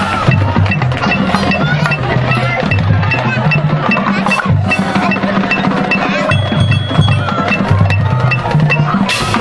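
Marching band playing its show music: drums and other percussion over a full ensemble with a stepping bass line, and a steady high tick keeping the beat about twice a second.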